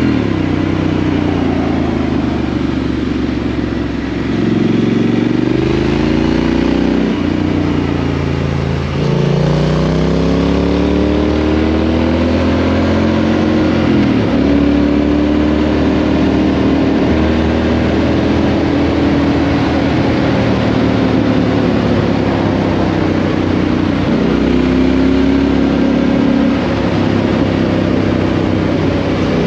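2018 Triumph Street Scrambler 900's parallel-twin engine through a Vance & Hines exhaust, ridden on the road. Its note climbs and drops several times with throttle and gear changes, with a steadier stretch in the middle.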